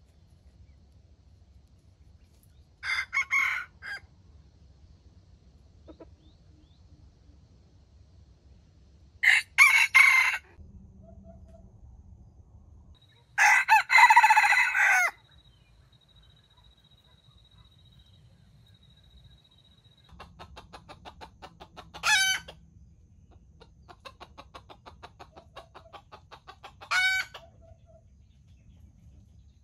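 Red junglefowl rooster crowing three times, a few seconds apart. Then come two runs of rapid, even clucking, each ending in a short loud call.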